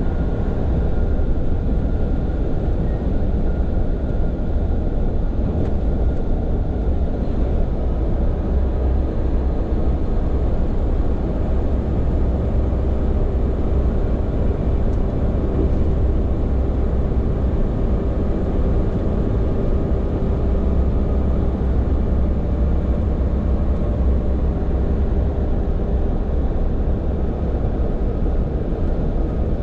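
Hino heavy tractor-trailer truck driving on the expressway, heard from inside the cab: a steady drone of engine and road noise with no changes.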